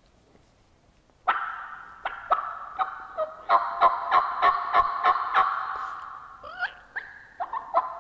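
Hunter's Woodhaven Ninja Half Venom diaphragm mouth call blown in a run of hen-turkey yelps, starting about a second in at about two or three yelps a second, with a short break near the end.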